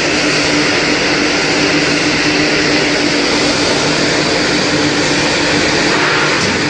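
Date paste grinding machine running: a steady motor hum under a loud, even grinding noise.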